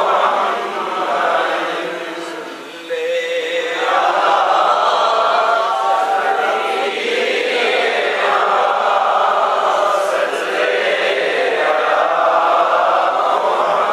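Urdu naat chanted by men's voices without instruments, in long phrases separated by short breaks. There is a brief drop in loudness a few seconds in.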